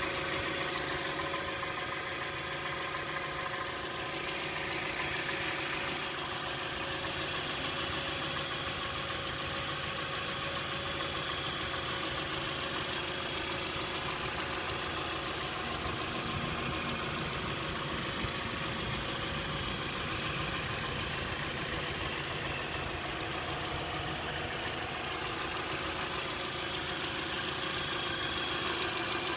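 Toyota ZRR70W (Noah/Voxy) engine idling steadily, with an abnormal rattle and a high squeal running through it. A faint high whine stands out briefly about four to six seconds in.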